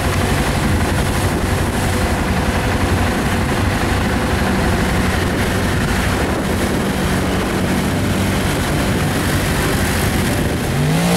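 ATV engine held at high revs, running steadily as the quad churns through deep mud. Near the end a different engine starts revving.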